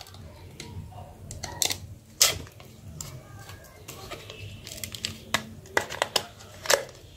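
Parts of a disassembled Micromax Q301 smartphone clicking and snapping as they are handled and pried by hand: a handful of sharp clicks, the loudest about two seconds in.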